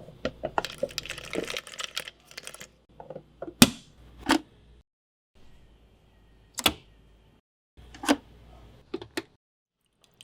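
Close-up sound effects of making a Nespresso capsule coffee, cut together in short clips with brief silences between them: a cluster of small clicks and rattles of capsules being handled, then a few sharp single clicks of a lid and the machine's capsule compartment closing and its button being pressed.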